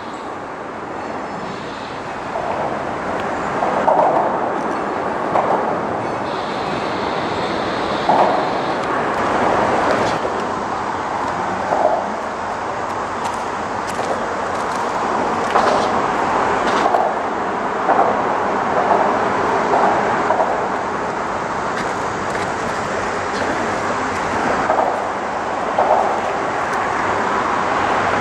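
Freight train rolling along the track: a steady rumble and rattle with louder clanks every second or two.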